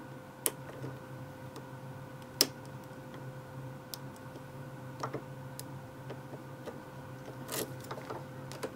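Small, sharp metallic clicks and ticks at irregular intervals from a steel lock pick and tension bar working the spool pins of a 5-pin rim cylinder during single pin picking, with one sharper click about two and a half seconds in. A steady faint hum runs underneath.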